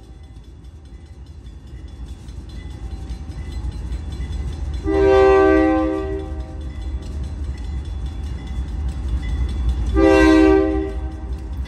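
Providence & Worcester diesel locomotive 3903 sounding its multi-note air horn twice, two blasts of over a second each about five seconds apart, as it approaches a road grade crossing. Under the horn, the locomotive's engine and the train's rumble grow louder as it draws nearer.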